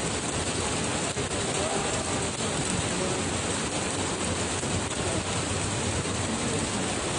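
Heavy rain pouring down during a hailstorm, a steady, even hiss of rain on the ground.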